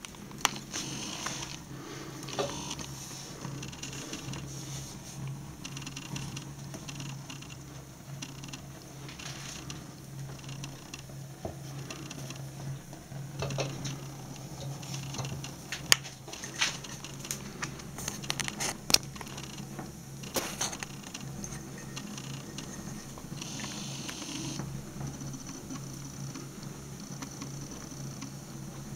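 Flames burning the fleece-lined collar of a leather boot, crackling with scattered sharp pops, most of them around the middle, over a steady low hum.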